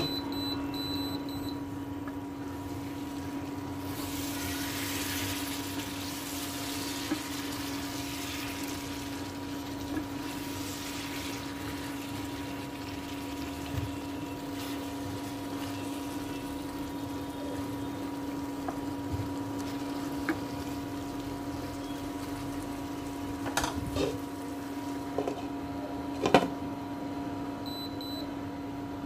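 Induction cooktop humming steadily under a wok of simmering prawn and elephant-ear-stem curry, with liquid bubbling and a spatula stirring. A few sharp clinks near the end as the glass lid is set back on the wok.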